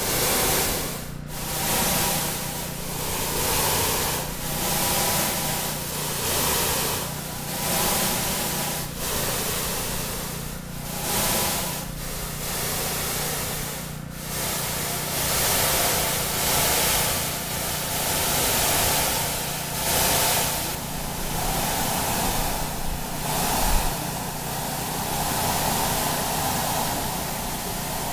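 Synthesized noise shaped to sound like ocean surf, swelling and falling away every couple of seconds, with a steady low hum underneath. The swells follow the brightness flicker of video feedback on the television screens.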